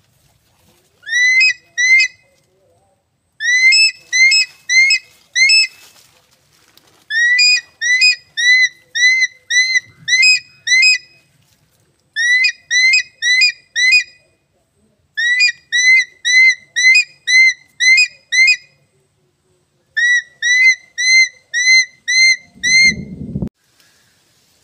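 Eagle calling: a series of high whistled notes, about two a second, given in runs of two to eight with short pauses between. Just before the end comes a brief low rumble.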